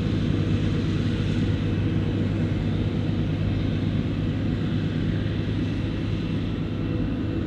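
Diesel engine of heavy farm machinery running steadily, a low even hum that fades slightly near the end.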